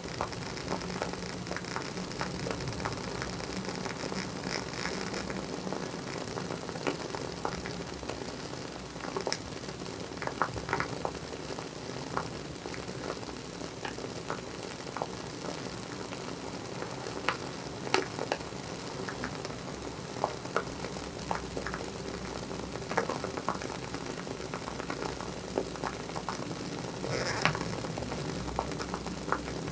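WoodWick candle's wooden wick crackling like a small fireplace: irregular small pops and clicks over a steady soft hiss, with a few sharper pops.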